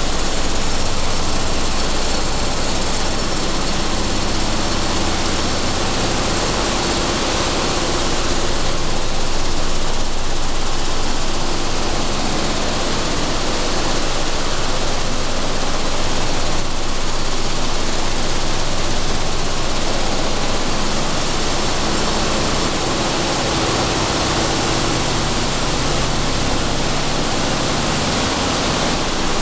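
Processing-plant machinery running: a loud, steady rush of noise from a sunflower seed separator's vibrating air deck and fans as seeds flow across it, with a faint steady hum underneath.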